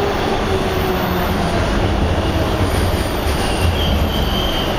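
TTC Bombardier T1 subway car running, heard from inside the car: a steady rumble of wheels on rail with motor and track noise. Faint high wheel squeal comes in during the second half.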